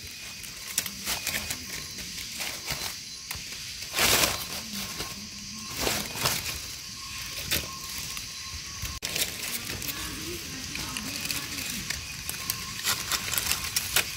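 Rustling and crackling of dry leaf litter and undergrowth: irregular small crunches and snaps, with louder swishes about four, six and seven and a half seconds in.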